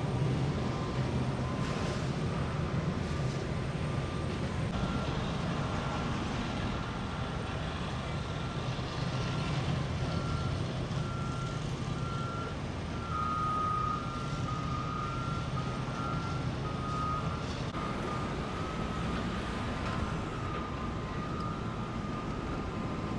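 Reversing alarm on construction equipment beeping about once a second, starting about five seconds in, over the steady low running of an engine.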